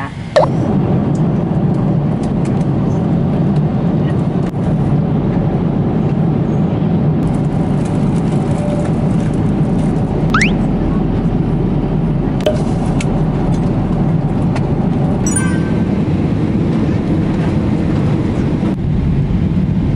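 Steady jet-airliner cabin noise: engine and airflow heard from inside the passenger cabin, with a few faint clicks and a brief rising squeak about halfway through.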